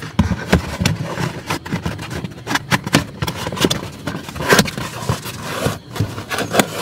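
A foam insulation panel being pulled down by hand from a car's footwell trim: irregular scraping and rustling of foam against plastic, with scattered clicks and knocks.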